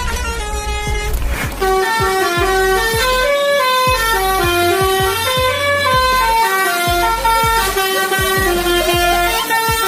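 Truck musical horn playing a tune of held notes that step up and down in pitch, starting about a second and a half in, over a regular low thudding.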